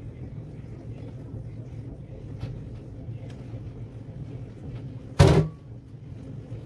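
A single loud thump about five seconds in, over a steady low hum and a few faint clicks.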